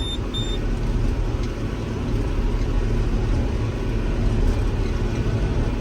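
Tractor pulling a large square baler through wheat straw, its engine and the baler running steadily, heard from inside the cab. Two short high beeps near the start.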